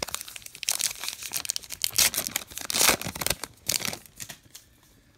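Foil wrapper of a Topps Heritage baseball card pack being torn open and crinkled in the hands, with sharp rips loudest around two and three seconds in. The crackling dies down after about four seconds.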